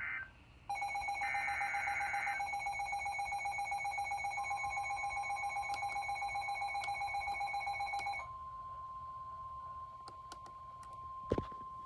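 NOAA weather radio receiver going off for a winter storm warning: a pulsing electronic alert beep about a second in that stops at about eight seconds, with a brief burst of higher data tones early on. A steady weather-radio warning alarm tone near 1 kHz comes in under it and continues alone afterward.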